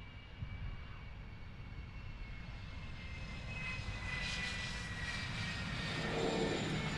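Jet fighter engines running: a whine that slowly falls in pitch over a low rumble, with a broader roar growing louder from about halfway through.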